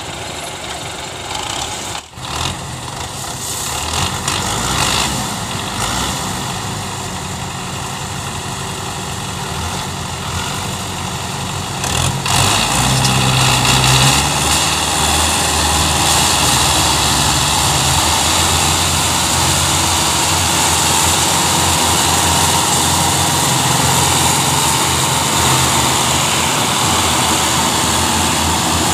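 Several tractor diesel engines running together. About twelve seconds in they rise to a louder, harder run under load as the tractors, chained in a line, pull a heavily loaded sugarcane trolley.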